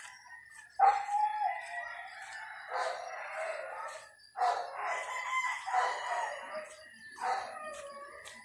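Rooster crowing several times in a row, each crow a second or two long.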